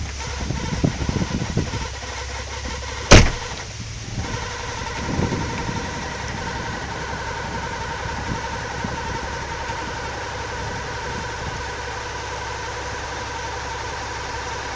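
Mazda MX-3 idling with the clutch pedal pressed down, giving a steady high-pitched squeal that comes from the gearbox and clutch area. The squeal only happens at idle with the clutch down. A single sharp click about three seconds in is followed by the squeal settling into a steady tone.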